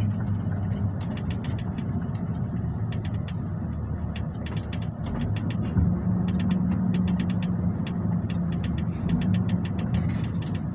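MAN diesel truck engine running under way, heard from inside the cab as a steady low drone. Its note grows stronger for a few seconds past the middle.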